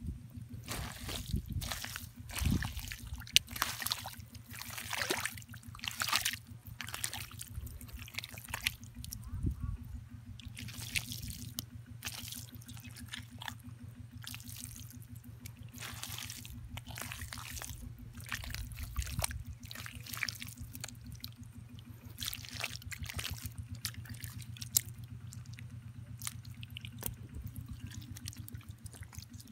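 Wet mud being dug and squelched through by hand, with water trickling and dripping: a string of short, irregular wet squelches, busier in the first half and sparser later, over a steady low hum.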